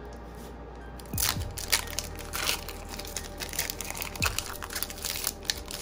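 Foil wrapper of a Pokémon Cosmic Eclipse booster pack crinkling and crackling as it is opened by hand. The crackles start about a second in and run in a dense, irregular stream.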